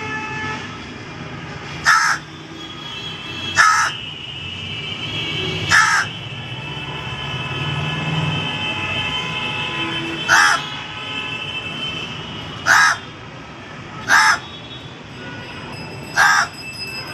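A crow cawing seven times, single short harsh caws spaced irregularly a couple of seconds apart, over a steady background hum with a faint high whine.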